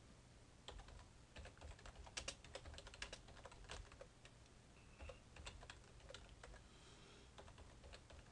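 Faint typing on a computer keyboard: an irregular run of quick key clicks as text is typed, pausing briefly midway.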